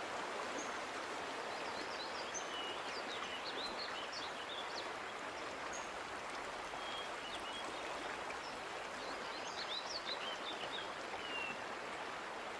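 Creek water running steadily over rocks, with small birds chirping now and then, in clusters a few seconds in and again past the middle.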